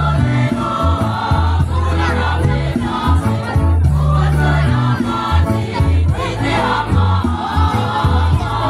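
Mixed school choir singing in parts, many voices together over sustained low bass notes.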